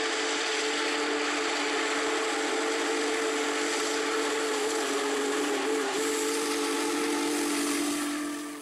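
Steam locomotive whistle, most likely Big Boy No. 4014's, blowing one long blast: several notes sounding together as a chord over a hiss of steam. It wavers briefly about six seconds in and fades out at the end.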